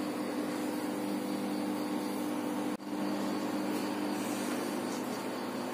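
Microwave oven running on its heating cycle: a steady electrical hum with fan noise. The sound drops out for an instant about halfway through, then carries on unchanged.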